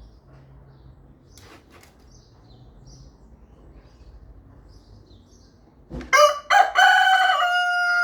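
Rooster crowing once, loudly, starting about six seconds in: a few short opening notes, then a long held note. Before the crow there are only faint chirps.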